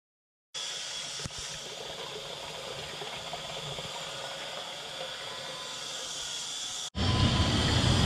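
Propylene glycol and air pouring from a return hose into a fill-rig barrel in a steady hissing splash, as air is purged from a snowmelt loop. Near the end it cuts abruptly to a louder low, steady hum.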